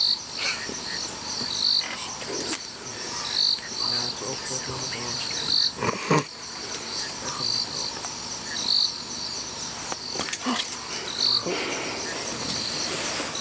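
Night chorus of calling insects: short high chirps repeating about once a second over a steady high trill. A few knocks and rustles sound through it, the loudest about six seconds in.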